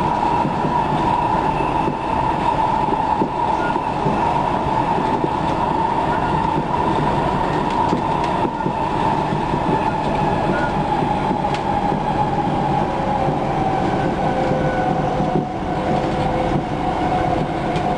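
Electric commuter train running, a steady rumble of wheels on rails under a whine that slowly drifts lower in pitch.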